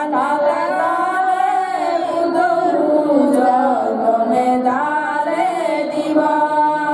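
Women's voices chanting a Buddhist prayer together, a slow melodic line with long held notes.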